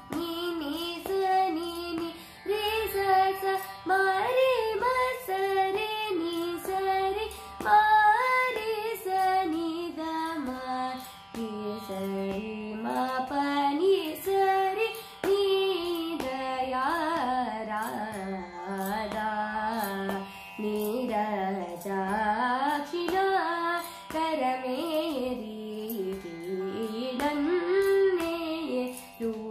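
A young female voice singing a Carnatic varnam in raga Andolika, its pitch gliding and bending through ornamented phrases. A steady drone holds underneath.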